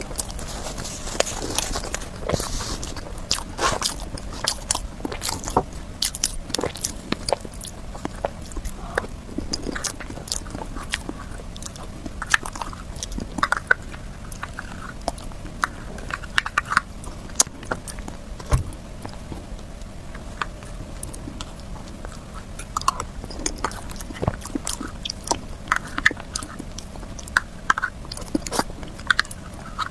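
Close-miked eating of cake: chewing with wet mouth clicks and smacks at an irregular pace.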